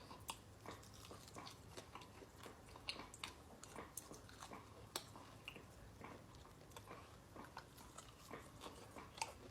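Faint chewing of air-fried chicken wings: scattered, irregular small clicks of biting and chewing close to the microphone.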